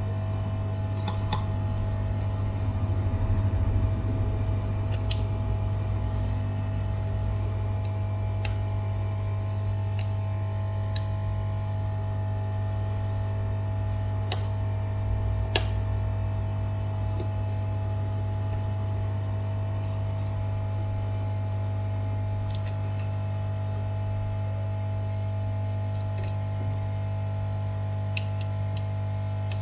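Steady low electrical hum, with a faint short high beep about every four seconds. A few light clicks, two sharper ones about halfway through.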